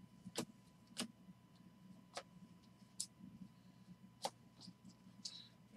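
Sleeved trading cards clicking and tapping as they are handled and sorted in hand, about six sharp separate clicks at irregular intervals.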